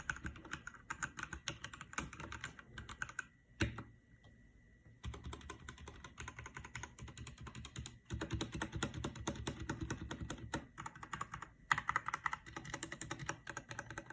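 Typing on a mechanical keyboard: a rapid run of key clicks, with a brief pause about four seconds in before the typing picks up again.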